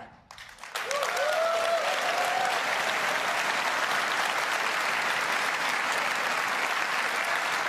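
Large audience applauding, with a few cheering shouts in the first couple of seconds. The clapping starts just under a second in and carries on steadily.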